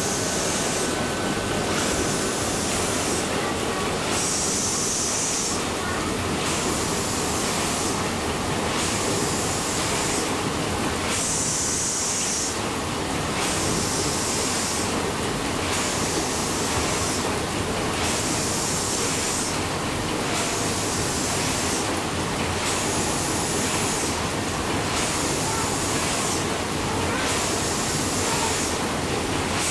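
The paddle steamer Pirna's steam engine running, with its cranks and connecting rods turning. A steady mechanical rumble carries a rhythmic steam hiss that pulses slightly slower than once a second.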